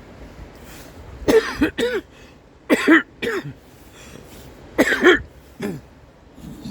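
A man coughing: three fits of chesty coughing, each of two or three harsh coughs, a second or two apart.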